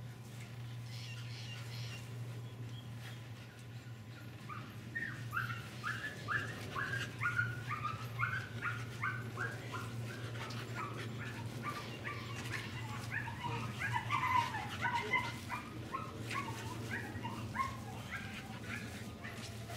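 Staffordshire bull terrier yelping and whining in a long run of short, high yelps, about two a second, starting a few seconds in.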